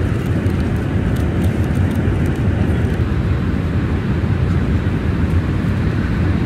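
Steady low rumble of a Boeing 777-300ER cabin in cruise: engine and airflow noise as heard from an economy seat, with a few faint ticks above it.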